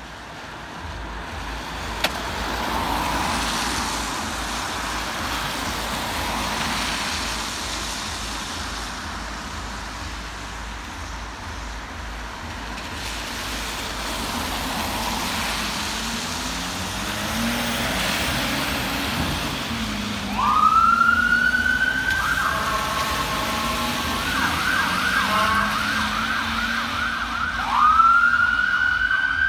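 Engine and road noise from vehicles for the first twenty seconds, then the Mercedes Sprinter ambulances' sirens start about twenty seconds in: a rising wail, a harsh steady bullhorn tone, a rapid yelp, and another rising wail near the end.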